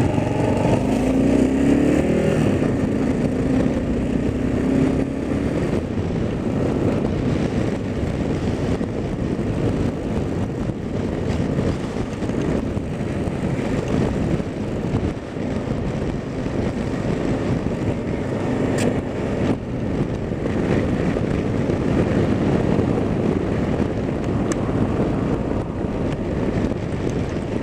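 Car engine and tyre noise while driving, a steady low rumble with a brief sharp click about two-thirds of the way through.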